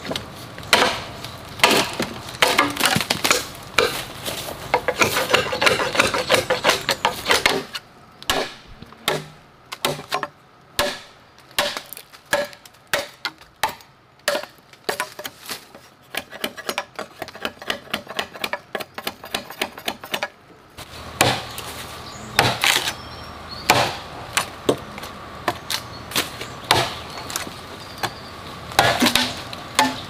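A machete chopping into a green bamboo culm: a steady run of sharp chops, about one or two a second, with the hollow stem ringing after some blows in the first few seconds.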